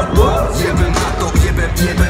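Live hip-hop band music at concert volume, heard from within the audience: heavy bass and steady drum hits.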